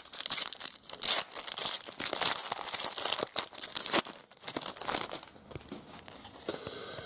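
Foil wrapper of an Upper Deck trading card pack crinkling and tearing as it is ripped open, dense for about four seconds, then fainter rustling as the cards are pulled out.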